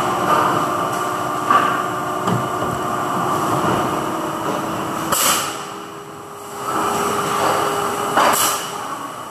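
Plastic injection moulding machine running: a steady mechanical hum with a few knocks, and two short hisses of air about five and eight seconds in.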